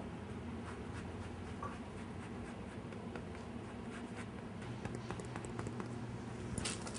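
Orange being zested on a grater: quiet, irregular short scratching strokes of the rind against the blade, over a low steady room hum.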